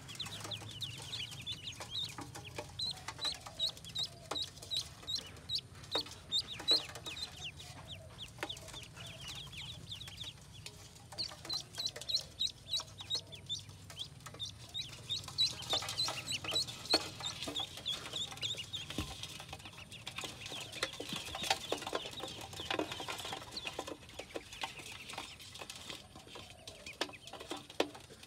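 A brood of ducklings peeping continuously: many short, high chirps, several a second, with scattered light taps and scuffs among them.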